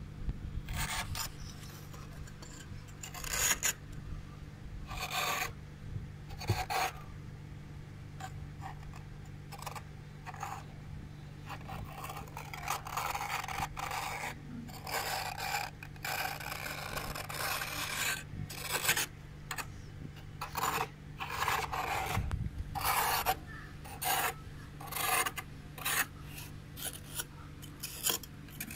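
Flat metal spoon scraping and shaving thick frost build-up off the inside walls of a freezer, a run of gritty scraping strokes. The strokes are spaced out at first and come faster and closer together toward the end.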